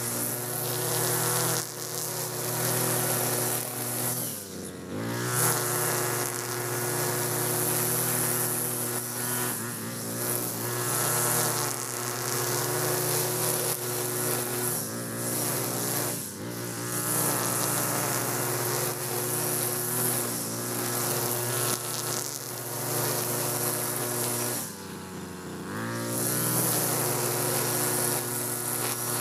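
Brush cutter engine running at high revs while its nylon-line trimmer head cuts grass. A steady buzz whose revs drop briefly and pick up again about three times.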